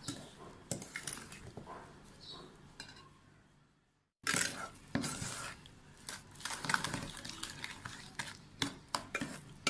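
A utensil stirring a thick banana and rice-flour batter in a bowl, with repeated clinks and scrapes against the bowl. The sound breaks off completely for a moment about four seconds in.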